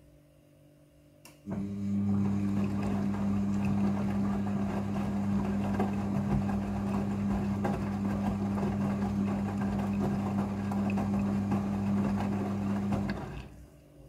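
Midea front-loading washing machine on its rinse cycle: a click just over a second in, then the motor hums steadily as it turns the drum and the wet laundry tumbles inside. After about twelve seconds the motor stops.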